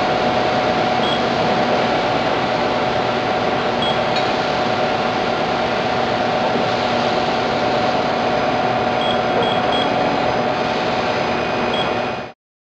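CNC press brake and its machinery running with a steady hum and a constant tone, with a few short, high beeps now and then. The sound cuts off abruptly near the end.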